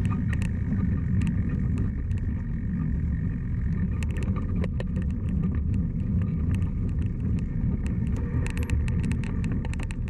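Mountain bike riding along a dirt trail: a steady low rumble of tyres and wind, with frequent clicks and rattles from the bike over bumps.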